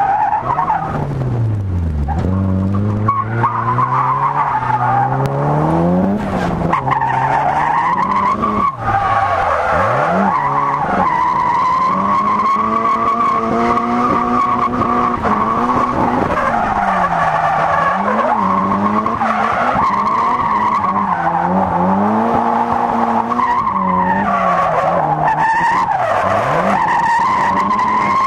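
Nissan S13 Silvia's turbocharged SR20DET four-cylinder, fitted with a TD06-20G turbo, revving up and falling back again and again under throttle while drifting. The tyres squeal steadily through the slides.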